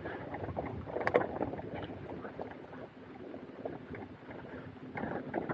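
Wheels rolling over a rough, sandy dirt track uphill, with irregular crunching and rattling. The rattling comes in small clusters about a second in and again near the end.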